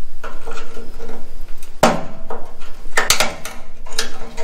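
Steel screwdriver prying and scraping at a cut, rusty sheet-steel drip-rail strip on a 1969 Chevy Nova's roof edge, with sharp metallic clinks: one about two seconds in, a quick pair about three seconds in, and one near the end.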